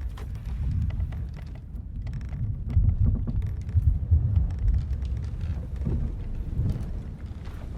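Ship-at-sea ambience: a deep, uneven rumble of wind and sea around the hull swells to its loudest in the middle and eases off, with faint scattered ticks and creaks over it.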